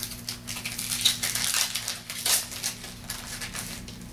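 Foil trading-card pack wrapper crinkling and tearing as the pack is opened: a run of crackly rustles, loudest about a second in and again past the two-second mark.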